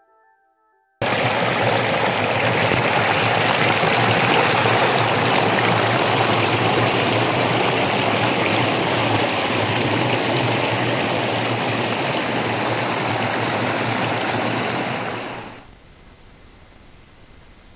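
Waterfall: water rushing steadily over rocks. It starts abruptly about a second in and drops away shortly before the end, leaving a faint hiss.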